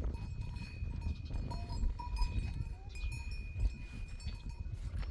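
Livestock calling a few times, faint and brief, over a constant low rumble, with a thin steady ringing tone that stops near the end.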